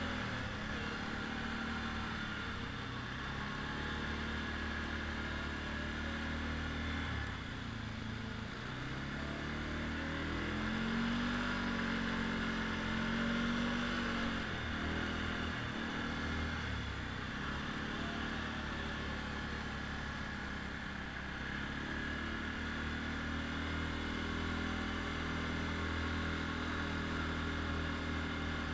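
ATV engine running while riding on sand, its pitch rising and falling several times as the throttle changes, over a steady hiss.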